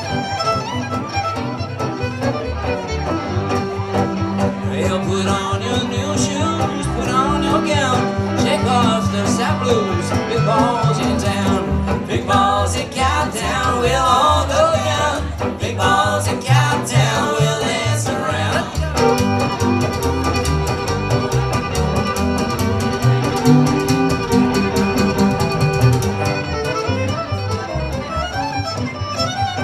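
Live western swing trio playing an instrumental break: fiddle leading over rhythm guitar and slapped upright bass. Around the middle the fiddle rests for a while and the guitar and bass carry on, then the fiddle comes back in.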